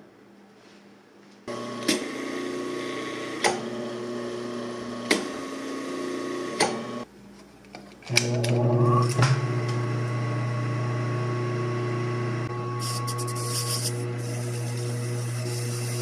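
Electric clutch motor of an industrial sewing machine humming steadily, with a few sharp ticks about a second and a half apart. It stops about 7 s in and starts humming again a second later. From about 13 s a wire brush scrubs scratchily over the flywheel's cork-faced surface.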